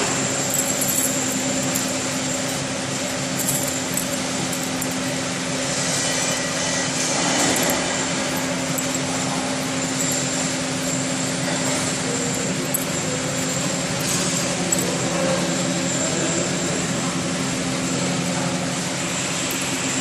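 Labeling machine running steadily: a motor hum with a constant high whine, and a few light clicks.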